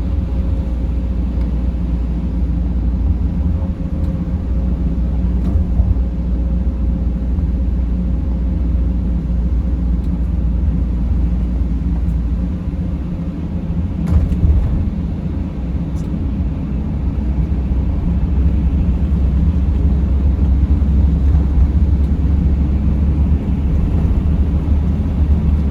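Steady low rumble of a Mercedes Sprinter van driving on snowy roads, with a few faint clicks; it grows slightly louder in the second half.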